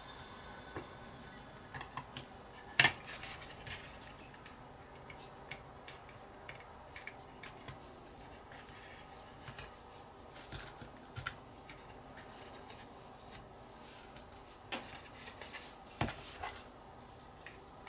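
Fine metal tweezers clicking and scraping against a plastic model body as paint masks are picked and peeled off it: scattered small clicks and scratches, the sharpest a single click about three seconds in.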